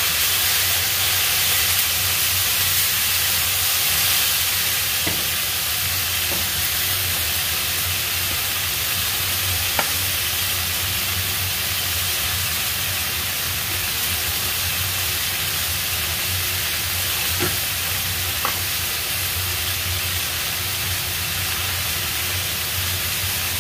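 Squash and eggplant sizzling steadily in a frying pan over a gas flame, an even hiss with a few faint ticks.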